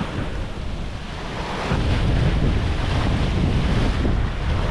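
Ocean surf washing in, with wind buffeting the microphone; the low wind rumble grows stronger a couple of seconds in.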